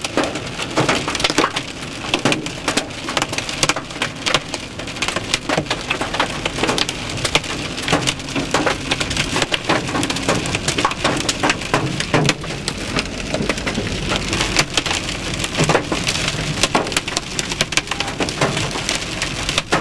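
Hail and heavy rain pelting a car's roof and windshield, a dense, unbroken clatter of hard impacts.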